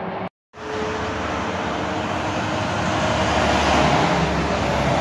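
Highway traffic: tyre and engine noise from passing vehicles, swelling as one comes close and peaking about four seconds in. The sound cuts out completely for a moment just after the start.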